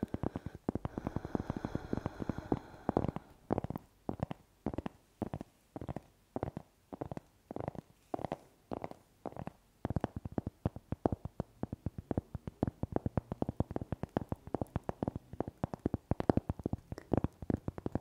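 Fingernails and fingertips tapping quickly and irregularly on a round cork board held right up to the microphones.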